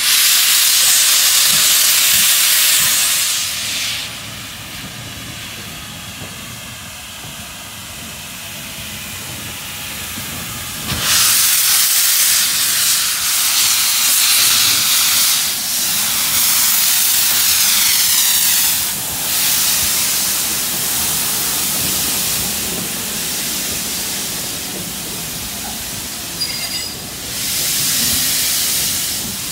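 GWR King class four-cylinder 4-6-0 steam locomotive 6023 King Edward II moving slowly past with its cylinder drain cocks open, steam hissing out in loud spells at the start, in the middle and again near the end, quieter between.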